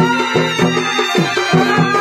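Chhau dance music: a held, slightly wavering melody line over steady drumming at about four strokes a second, some drum strokes bending down in pitch.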